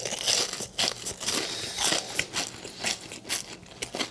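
Close-miked chewing of a crispy battered fried shrimp: the fried coating crunching and crackling in the mouth in many quick, irregular crackles.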